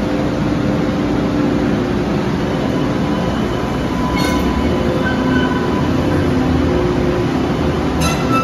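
MBTA Green Line light rail train rolling slowly past along the platform: a steady rumble with a faint running hum, and a sharp click from the wheels about four seconds in and again near the end.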